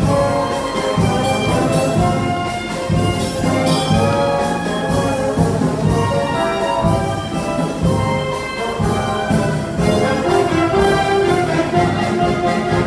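A live concert band playing a cha-cha: clarinets, saxophones and brass carrying the tune over a steady percussion beat.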